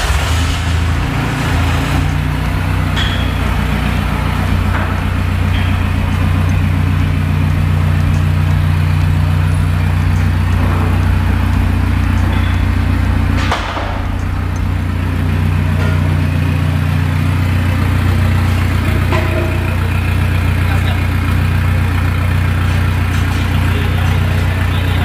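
Mitsubishi Triton's common-rail turbodiesel engine idling steadily through a newly fitted full stainless-steel exhaust system, with a brief break about halfway through.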